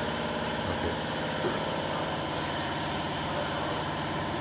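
A motor-driven machine running steadily with an even, low drone.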